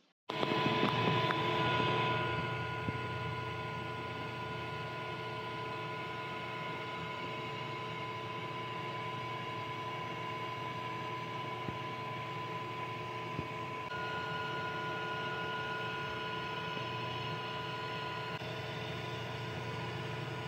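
xTool M1 10-watt laser cutter running while it cuts out an ornament in 7 mm cherry: a steady whirring with a low hum and a steady whine. It is louder for the first couple of seconds, and a second, higher whine joins about fourteen seconds in.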